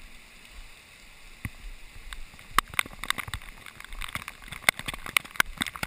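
Muddy flash-flood water rushing through a slot canyon as a steady hiss. From about halfway in, many sharp irregular taps and splashes come on top of it.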